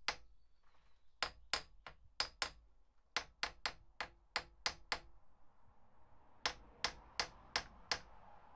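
Claw hammer striking the cylinder head of a Volvo Penta MD17C marine diesel to break it loose for removal. The blows are sharp and come in quick runs of about four a second, with a short pause about five seconds in.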